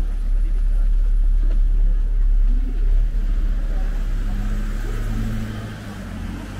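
Street traffic: a motor vehicle's engine running close by, a deep rumble for the first few seconds that gives way to a steady engine hum, with people's voices faintly in the background.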